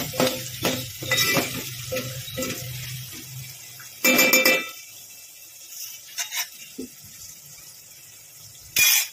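A metal ladle stirring pigeon peas in an aluminium pot, scraping and knocking against the pot's sides, then a ringing clang about four seconds in. After that the pot goes quieter, with a few faint clicks and a short loud burst near the end.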